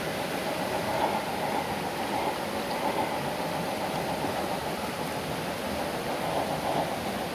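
Small electric motor and gearbox of a 1:28-scale RC rock crawler whining steadily under a noisy hiss, rising and falling a little as it crawls.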